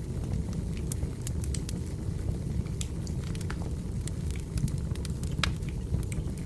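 Wood fire burning: a steady low rumble of flames with irregular sharp crackles and pops of burning firewood.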